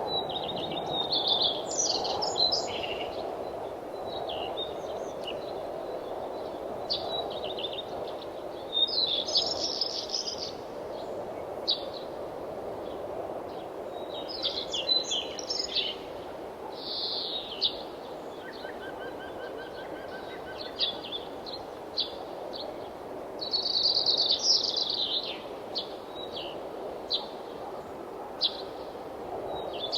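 Songbirds chirping and singing in short, high phrases every few seconds, over a steady low rush of wind.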